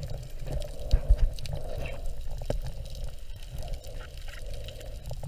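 Muffled underwater noise picked up by a submerged camera: a steady low rumble of moving water with a faint steady hum and a few short clicks.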